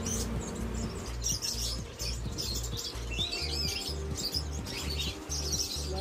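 Many caged budgerigars and other small birds chirping busily, over background music with a steady low beat.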